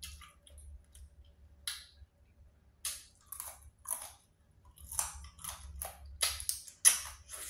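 Close-up mouth sounds of eating boiled crawfish: sucking and chewing meat from the shells in short crackly bursts, sparse at first and coming faster in the second half.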